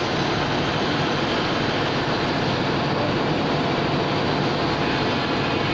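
VMC1600 vertical CNC machining center running, giving a steady, even mechanical noise with no distinct knocks or changes.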